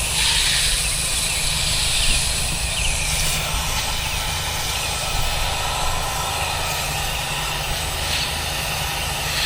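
Pressure washer running steadily: the engine-driven pump's low hum under the constant hiss of the water spray on the wall.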